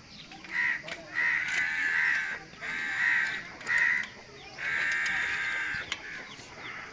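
Crow cawing, about six harsh calls in a row, the last one longer.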